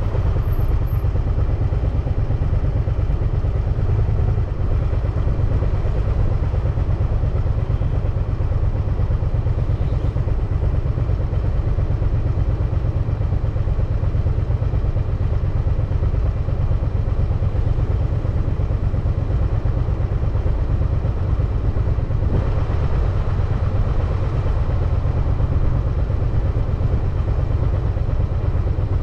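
Steady low rumble of wind and road noise on the microphone of a bicycle being ridden along city streets, without a break and without any clear single event.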